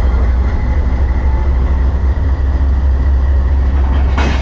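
A passenger train standing at the platform with its diesel engine running: a steady low rumble with a faint steady whine above it.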